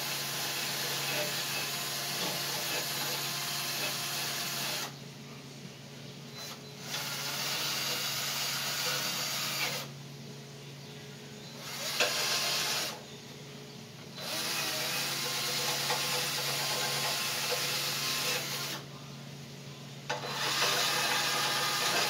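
Hand-held power tool running in runs of several seconds, with four short pauses, as it works on the front fender bracket of a hot rod.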